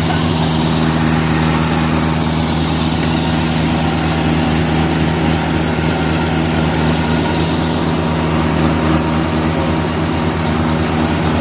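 Diesel engines of a tractor and a Yanmar AW82V combine harvester running steadily at a constant pitch under load, as the tractor hauls the bogged-down combine out of deep mud on a chain.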